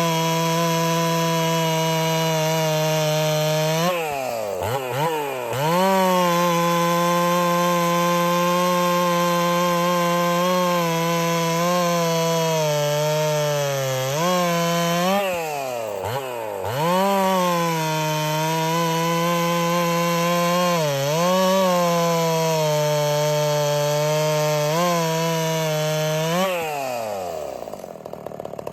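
Ported Husqvarna 61 two-stroke chainsaw running at full throttle in a cut, its pitch dipping several times as the chain loads up in the wood and then recovering. Near the end the revs fall away toward idle.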